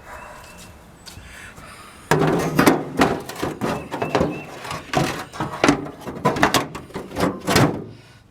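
Scraper working stuck-on rust and grease in the bottom pan of a gas grill: a run of irregular rasping strokes and knocks against the metal, several a second, starting suddenly about two seconds in and stopping shortly before the end.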